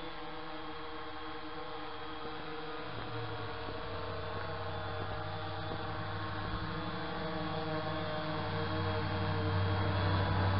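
Tovsto Aegean V2 quadcopter's brushless motors and propellers buzzing with a steady, many-toned hum. The hum grows louder in the second half as the drone flies closer.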